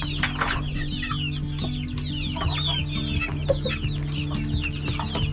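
A flock of young chickens peeping and chirping, many short high calls falling in pitch and overlapping, over a low steady hum.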